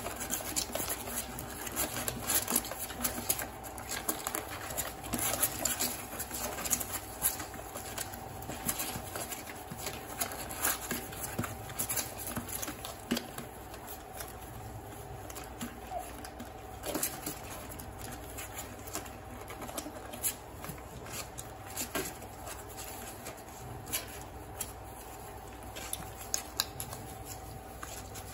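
Two-week-old Miniature Bull Terrier puppies suckling at their mother's teats: an irregular stream of small wet smacking and clicking sounds, with a faint steady hum underneath.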